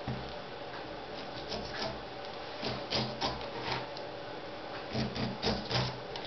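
Kitchen knife slicing the rind off a pineapple on a wooden cutting board: short scraping strokes through the tough peel, with dull knocks as the blade meets the board, coming in clusters near the middle and near the end.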